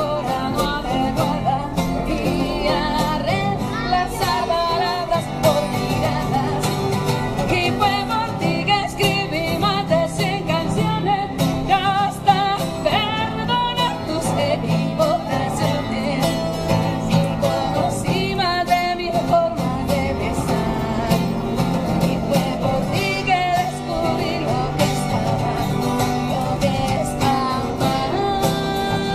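A woman singing with a wavering vibrato, accompanied by a man playing an acoustic guitar.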